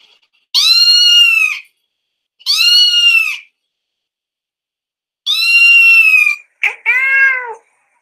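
Cats yowling: four drawn-out calls, each about a second long and rising then falling in pitch, with pauses between and the last two close together.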